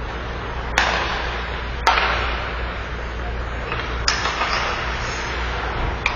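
Ice hockey sticks and puck striking, four sharp cracks that echo around the rink, over a steady low hum of the arena.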